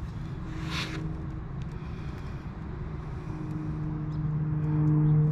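A vehicle engine runs with a steady low drone that grows louder over the last couple of seconds. There is a short hiss about a second in.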